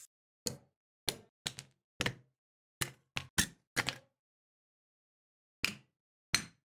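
A series of about ten sharp knocks or taps on a hard object, at an uneven pace and some in quick pairs, with a long gap just after the middle.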